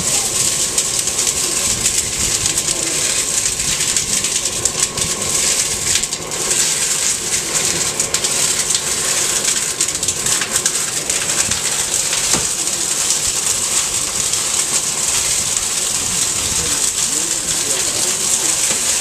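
Kitchen fire burning: a steady, loud hissing rush packed with fine crackles as the cupboards and contents burn.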